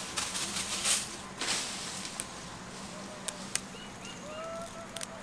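Fresh herb leaves rustling as they are handled and picked up from a wicker basket, loudest about a second in, followed by a few sharp clicks.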